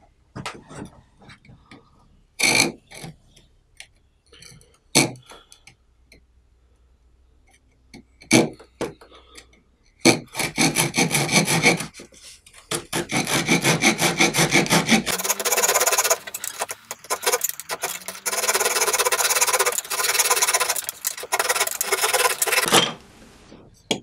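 Leatherman Rebar multitool's small saw blade cutting a strip of pine by hand. For the first several seconds there are only a few scattered knocks and short scrapes. Then come fast, steady back-and-forth rasping strokes, with a brief break, which stop shortly before the end as the piece is cut through.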